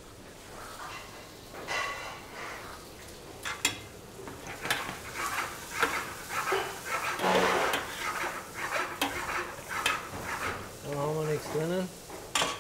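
Kitchen clatter of scattered metal clinks and knocks, with a metal ladle stirring and knocking in a large stainless-steel stockpot of broth. A man speaks briefly near the end.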